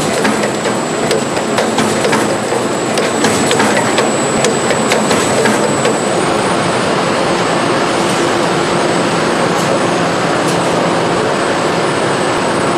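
Steady factory-floor machinery noise from a stator-winding assembly line, with a thin high whine throughout. Scattered sharp clicks and ticks in the first half grow sparse after about six seconds.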